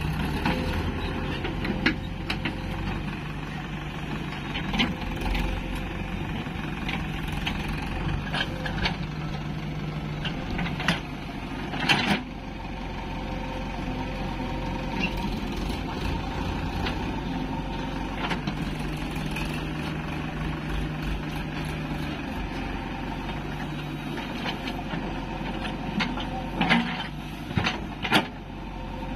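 JCB 3DX backhoe loader's diesel engine running steadily as it digs, its pitch shifting with the hydraulic load, with scattered sharp knocks from the bucket and arm working the soil, the loudest about twelve seconds in and a cluster near the end.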